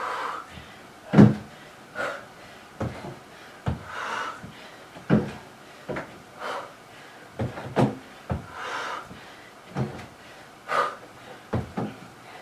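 Feet thudding on a workout box and the floor during step-ups and reverse lunges, a dull knock about every one to one and a half seconds, with hard exhaled breaths between them.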